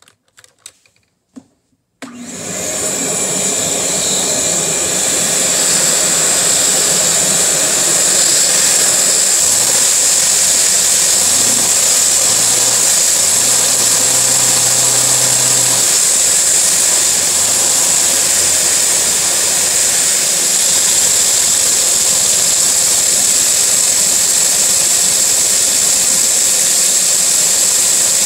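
After a few faint clicks, a vacuum cleaner switches on about two seconds in and runs steadily with a loud high hiss, its suction driving a Lego V4 vacuum engine. A faint low hum steps up and down in pitch in the middle.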